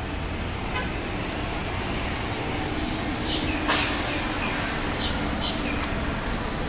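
Steady outdoor traffic rumble with a low hum, as of a large vehicle going by, with a short sharp hiss or click about halfway through and a few faint high chirps.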